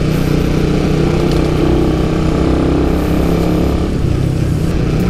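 Suzuki Raider 150 Fi's single-cylinder four-stroke engine running steadily on its stock exhaust while the motorcycle is ridden at low road speed.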